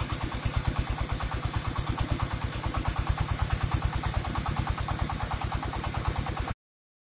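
Engine of a mobile rice milling machine running steadily with an even chug of about seven or eight beats a second, cutting off suddenly near the end.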